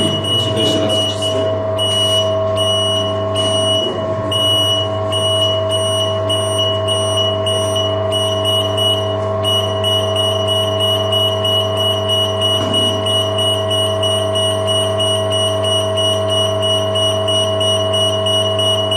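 Hydraulic power unit of a Nowatech ZHCN-315CNC butt-fusion pipe welder running with a steady hum as it drives the carriage automatically into the pipe-loading position. Over it a high-pitched warning buzzer from the controller beeps repeatedly, then sounds continuously from about halfway through while the machine is still moving.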